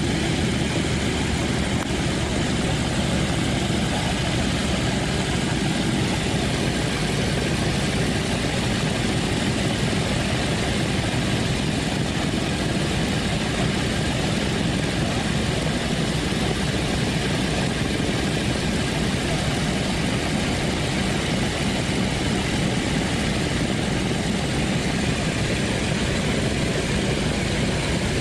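The four Wright R-1820 Cyclone radial engines of a Boeing B-17G Flying Fortress running steadily at low power, as at idle, with no change in pitch or level.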